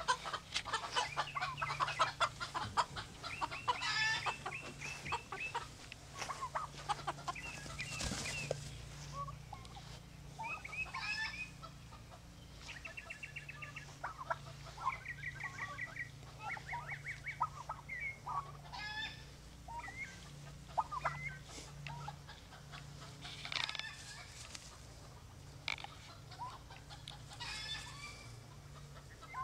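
Chickens clucking in quick strings of short calls, with a steady low hum underneath.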